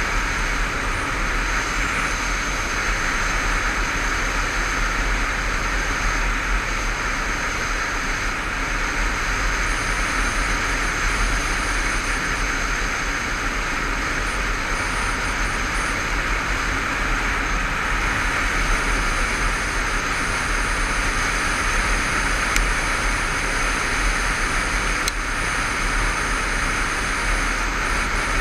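Steady wind rush over a helmet-mounted camera's microphone while riding a Honda CBF500 motorcycle at a constant cruise, with the engine and tyre noise running underneath at an even level.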